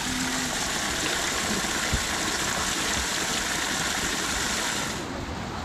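Spring water pouring and flowing in a steady rush. The sound drops away abruptly about five seconds in.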